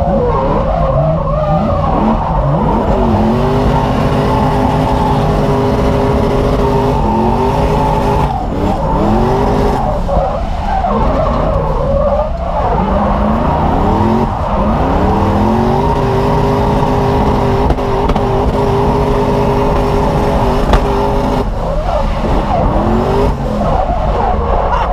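Drift car's engine revving hard through a run: the pitch climbs and drops again and again and is held steady at high revs for several seconds at a time, with tyres skidding.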